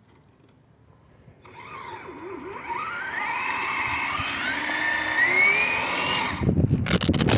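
Electric motor of a Traxxas Slash 2WD RC drag truck whining under full throttle, its pitch climbing for about five seconds as the truck accelerates on a drag run, then cutting off. Low rumbling bursts follow near the end.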